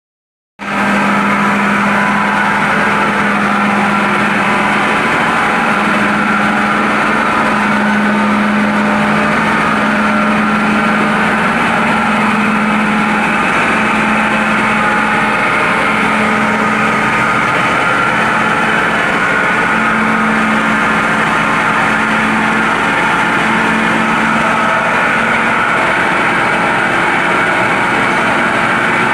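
Micro-hydro turbine and its belt-driven generator running steadily: a loud, even machine noise with a constant low hum that swells and dips slightly.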